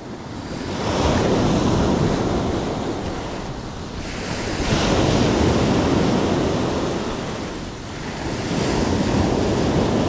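Black Sea waves breaking and washing on the shore, the surf swelling and ebbing in slow surges: up about a second in, again near the middle and toward the end.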